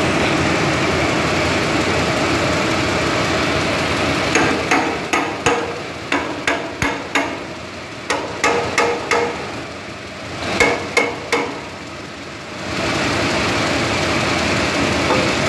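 Warping machine running with a steady whirring noise. In the middle the steady noise drops and three groups of sharp knocks come through, about two a second, before the steady running noise returns near the end.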